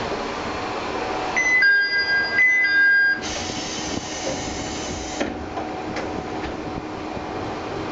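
Inside a diesel railcar, over the steady noise of the car, a two-note tone sounds twice in short bursts about a second and a half in. It is followed by a loud hiss of compressed air for about two seconds, which cuts off sharply.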